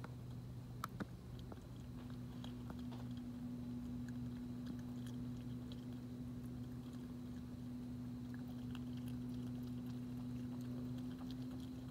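Opossum crunching food from a bowl: scattered faint crunches and clicks, with a couple of sharper ones about a second in, over a steady low hum.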